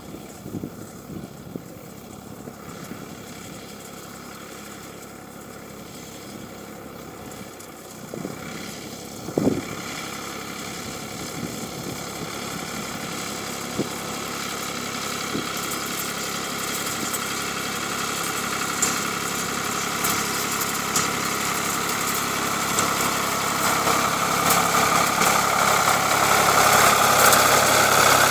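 Ford 4000 tractor's engine running, growing steadily louder as the tractor drives up and passes close by. A single sharp thump about nine seconds in.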